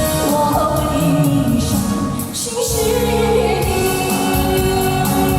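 Music with singing: a voice holding long notes that slide in pitch over instrumental accompaniment.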